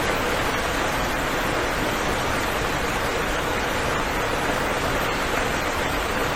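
Steady, even rain with no single drops or thunder standing out.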